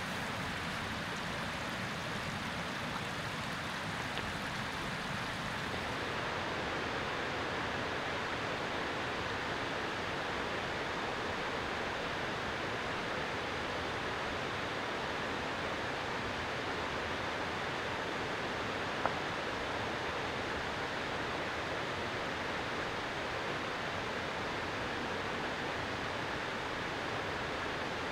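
Steady, even rushing noise with no pitch or rhythm, and a single faint click about nineteen seconds in.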